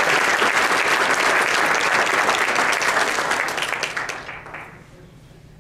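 Audience applauding, a dense clatter of many hands clapping that dies away about four to five seconds in.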